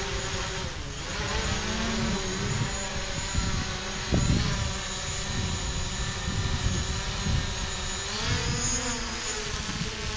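DJI Mavic Pro quadcopter's propellers whining and buzzing as it flies low overhead, the pitch rising about eight seconds in as the motors speed up. Wind rumbles on the microphone underneath, with a gust about four seconds in.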